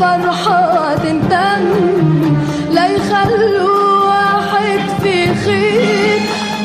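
A woman singing a Tunisian tarab song in a wavering, ornamented line, backed by a live orchestra with a steady beat.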